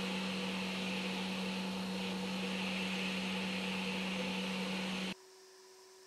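Steady electrical hum with a hiss. It cuts off suddenly about five seconds in, leaving only a faint thin tone.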